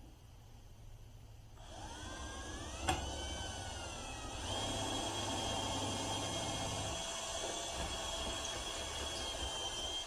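Electric drill starting up and boring a dowel hole in wood. Its whine rises as it spins up, with a sharp click, then runs steadily and cuts off near the end.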